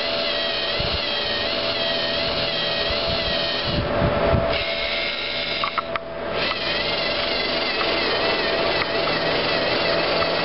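LEGO NXT servo motors of a robotic chess arm whining through their plastic gears as the arm moves, the pitch wavering up and down. The whine breaks off briefly twice, with a low bump about four seconds in and a few clicks near six seconds.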